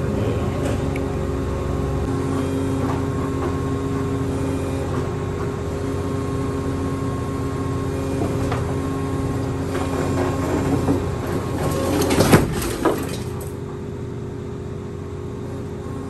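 Husqvarna DXR remote-controlled demolition robot running with a steady hydraulic hum as its arm carries a heavy steel bank vault door. About twelve seconds in the door comes down onto the concrete floor with a loud crash and a second knock just after, and the robot then runs quieter.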